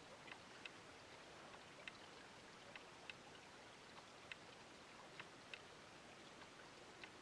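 Near silence: faint night-time hiss with a few small, scattered ticks.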